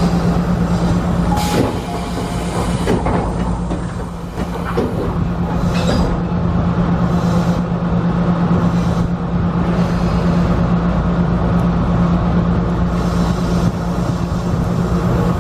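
Steady low hum of a Tobu electric commuter train standing at a platform, heard from the driver's cab, with a few faint clicks and knocks.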